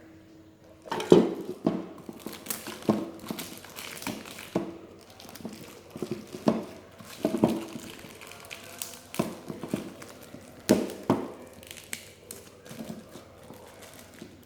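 Irregular knocks, clicks and some rustling as hard plastic juicer parts and packaging are handled, about one or two knocks a second.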